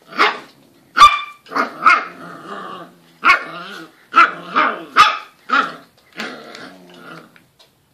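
A cockapoo puppy barking repeatedly, about a dozen short, sharp barks with brief gaps between them.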